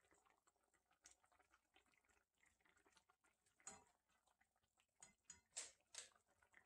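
Faint bubbling and popping of doenjang stew simmering in an open pot, a steady patter of tiny bursts with a few louder pops in the second half.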